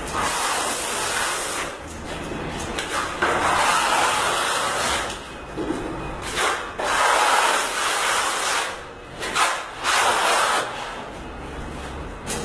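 Handmade PVC spreading tool dragging a first coat of calfinagem plaster-finish compound up a cement wall: a series of long scraping strokes, each a second or two long.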